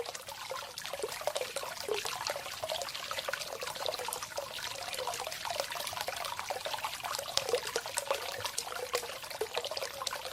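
Hot spring water flowing and trickling, a steady splashing full of small plops and gurgles.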